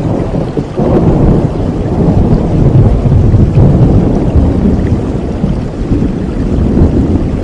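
Thunder rumbling over steady rain, swelling about a second in and staying loud, with most of its weight in deep low rumble.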